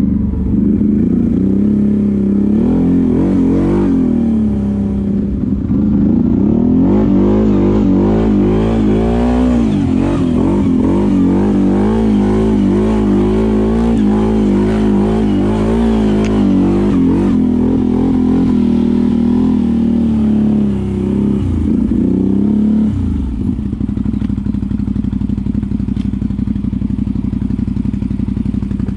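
ATV engine running hard, its revs rising and falling unevenly for most of the time. It settles into a steadier, lower note near the end.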